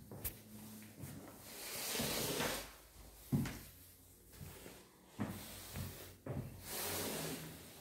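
Doors being handled, knocking and clicking four or five times, with two longer rushing swishes between the knocks.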